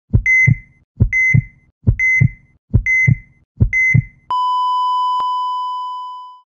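Heartbeat and heart-monitor sound effect: five double heartbeat thumps, each with a short high beep, at about one a second. Then the monitor drops into a long, steady flatline tone that fades out near the end.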